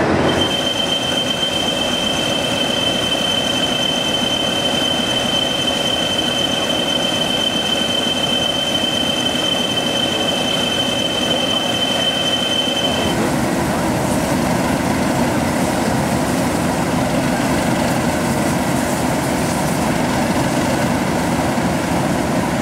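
Steam tank locomotive in a railway yard, with a single steady high-pitched squeal held for about thirteen seconds. The squeal then stops and a lower, steady noise carries on.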